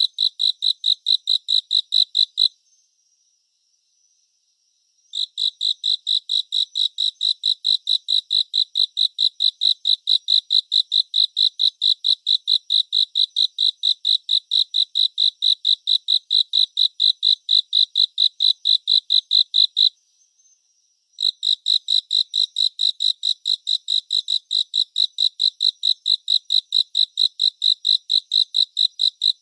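A cricket chirping steadily, about three to four even chirps a second, breaking off twice for a second or two before starting again. In the pauses a fainter steady trill from another insect carries on.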